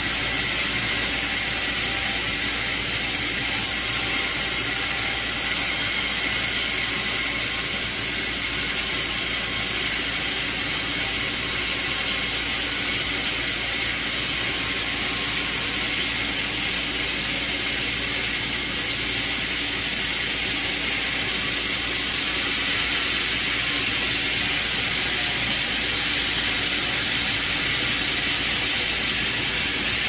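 Sawmill band saw cutting lengthwise through a sugi (Japanese cedar) log: a loud, steady, high hissing whine of the blade in the wood, with the carriage machinery running under it.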